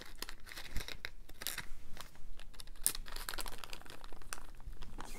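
Small clear plastic zip-lock bag crinkling as fingers pull it open and handle it, a run of irregular crackles.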